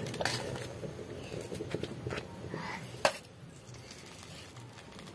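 Wood fire crackling in a chulha under an iron kadhai of hot oil, with a few sharp pops, the loudest about three seconds in.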